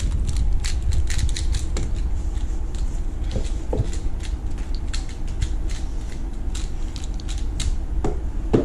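Clicking of plastic speedcube layers being turned, in quick irregular runs, over a steady low rumble.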